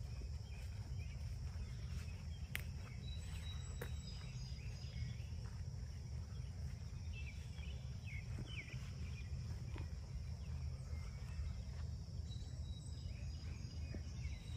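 Faint pond-side outdoor sound: a steady high insect drone and scattered short chirping animal calls, most of them midway through, over a low steady rumble. The calls are weird little animal noises, like a cat coughing up a hairball, which the listener takes for probably a frog.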